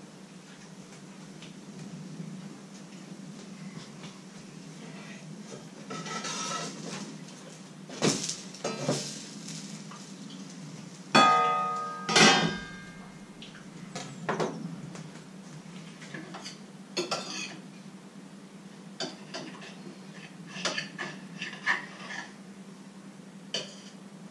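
Pots, pans and metal utensils clattering on a stovetop: a spoon knocking and scraping in a pot, with scattered clinks and two loud ringing metal clangs a little past the middle.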